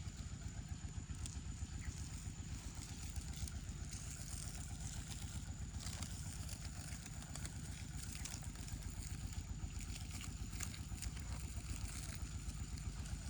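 A small engine running steadily, with a rapid even low pulsing throughout and a thin steady high tone above it.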